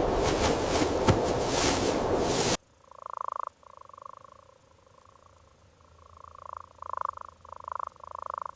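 A loud, steady rushing noise cuts off abruptly about two and a half seconds in. After it comes a soft, purring rumble from an animal, in short pulses that come closer together toward the end.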